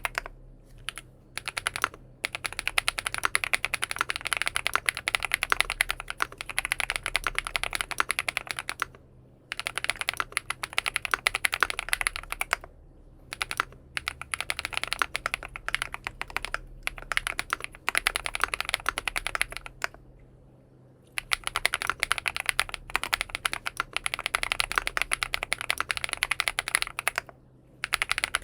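Typing on a XINMENG M71 full-aluminium keyboard fitted with BSUN Bunny switches: fast, dense keystrokes in long runs, stopping briefly a few times.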